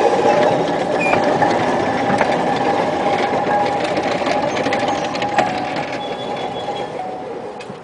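1926 Whitcomb 4-ton storage battery mine locomotive running at medium speed on narrow-gauge rail: a steady electric-motor and gear whine with rattles and occasional knocks. It fades over the last few seconds as the locomotive moves off down the track.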